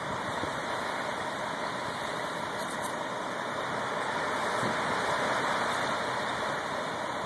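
Concrete mixer truck's diesel engine running steadily at idle.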